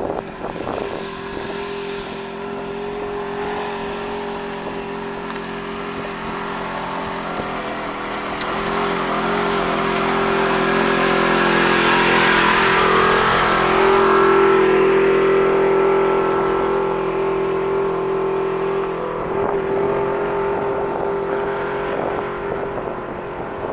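A Polaris side-by-side utility vehicle's engine running as it comes up the dirt trail and passes, growing louder toward the middle, then fading.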